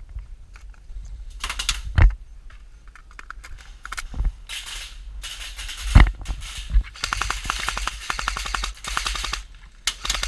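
Airsoft electric guns firing rapid full-auto bursts, a fast clatter of shots, with the longest burst lasting about two and a half seconds in the second half. Two single loud knocks stand out, about two and six seconds in.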